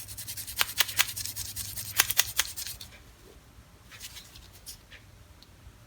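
Loose steel wrenches and hand tools clinking and rattling against each other as they are picked through. There is a quick run of clicks over the first two and a half seconds, then a few lighter ticks near the end.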